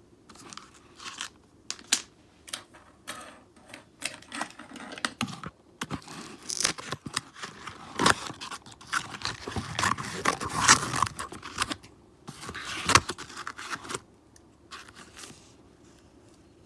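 Plastic packaging being handled and torn: crinkling, scraping and sharp clicks, busiest in the middle and dying down near the end.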